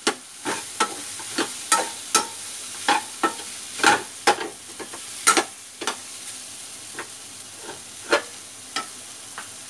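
Steel ladle scraping and clinking against a steel kadhai as a potato-tomato sabzi is stirred, over a steady sizzle from the pan. The scrapes come irregularly, about one or two a second, and grow sparse after about six seconds.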